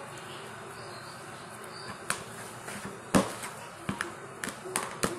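Thick butter slime being stretched by hand and stirred with a spatula in a plastic bowl, giving a run of sharp sticky pops and clicks from about two seconds in. The loudest comes just after three seconds.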